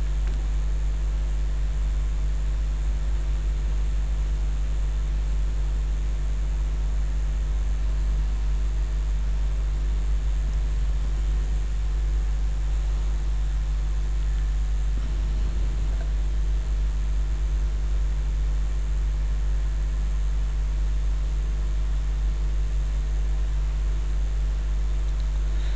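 Steady electrical hum with an even hiss, unchanging throughout: mains hum and noise picked up by an open microphone.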